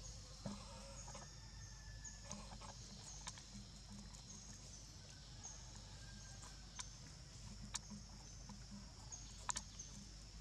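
Faint outdoor ambience: short, high, falling chirps repeating about once a second over a steady faint high tone, with a few sharp clicks, the loudest near the end.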